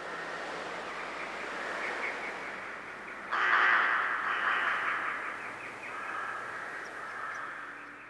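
A large flock of birds calling at once in a dense, chattering din, which turns suddenly louder about three seconds in.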